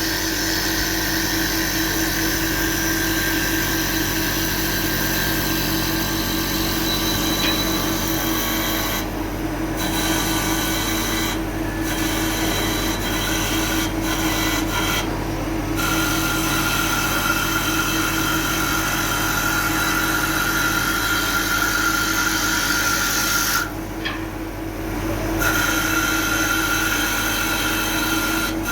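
CNC wood lathe running, cutting the spinning wood with a steady high whine over a hiss. The cutting hiss drops out briefly a few times.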